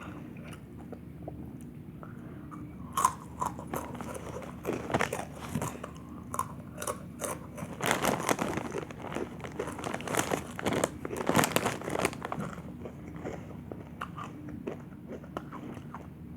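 Someone crunching and chewing Dynamite Takis rolled tortilla chips close to the microphone, in clusters of crisp crunches through the middle, quieter at the start and near the end.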